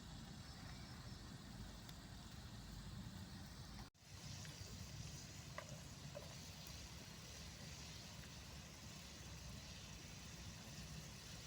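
Faint, steady outdoor background noise with no clear single source. It cuts out abruptly for an instant about four seconds in, and a couple of faint clicks follow.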